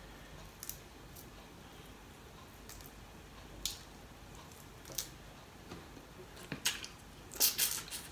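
Steamed prawn shell being cracked and peeled apart by hand: scattered short crackles and wet clicks, coming thicker near the end as the prawn reaches the mouth.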